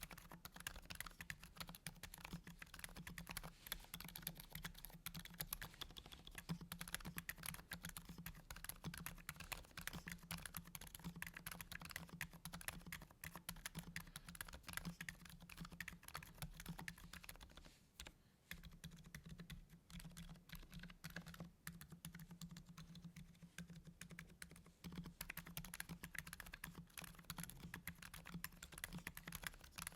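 Continuous quiet typing on a modded Akko 5087B Plus mechanical keyboard fitted with lubed Gazzew Boba U4 silent tactile switches: rapid, muted keystrokes with a brief pause about eighteen seconds in.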